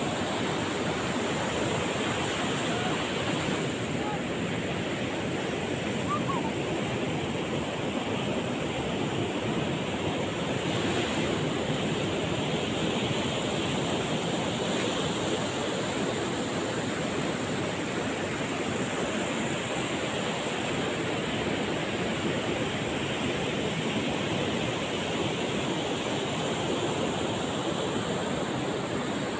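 Low surf breaking on a sandy beach: a steady, even wash of waves.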